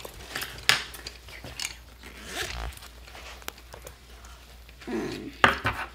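Scattered rustling and scraping of paper and colored pencils being handled on a tabletop: short scratchy strokes and a few sharp clicks.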